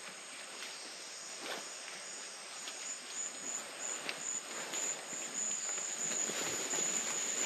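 Rainforest insects calling: a high, pulsing, cricket-like chorus that grows louder toward the end, with a couple of faint knocks beneath it.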